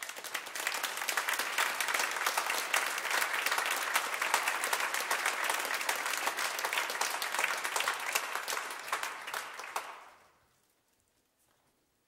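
Audience applauding, a dense even clapping that fades out about ten seconds in.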